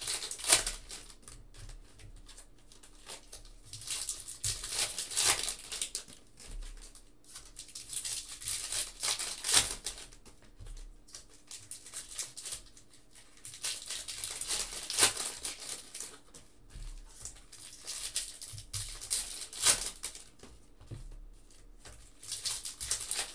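Foil wrappers of Topps Chrome trading-card packs being torn open and crinkled by hand, a sharp rip about every four to five seconds with softer crinkling between.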